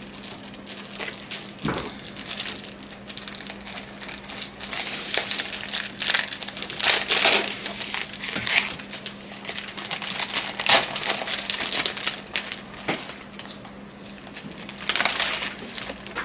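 Packaging crinkling and rustling in irregular bursts as accessories are unwrapped and taken out, over a faint steady hum.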